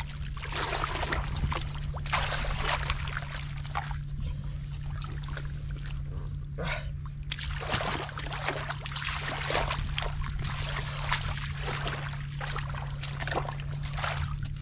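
Hands groping through shallow muddy water, sloshing and splashing irregularly, over a steady low hum.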